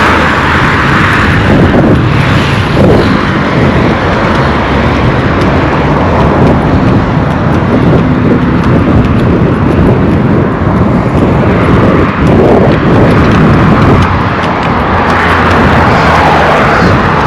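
Motor vehicles running past on a busy road, a loud continuous rumble of engines and tyres.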